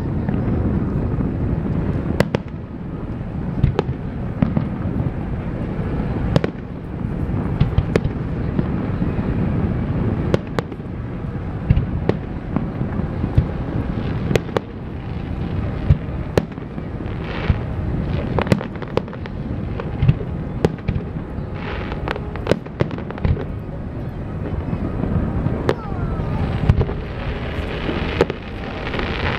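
Aerial fireworks shells bursting in quick succession: many sharp bangs over a continuous low rumble of booms.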